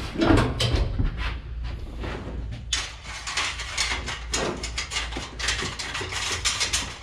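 Rattling, scraping clatter of metal parts being handled by hand, thick with sharp clicks from about three seconds in, over a steady low hum.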